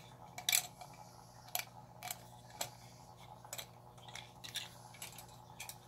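Small, irregular clicks and taps of the tiny rear doors of a diecast International Durastar box van being worked shut by hand. The doors are touchy and don't want to close correctly.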